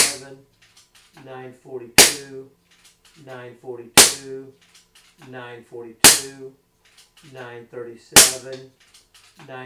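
Air Arms S510 XS TDR .22 PCP air rifle, with its built-in moderator, firing five shots about two seconds apart. Each shot is a sharp crack with a short tail. This is a regulated shot string on the high-power setting.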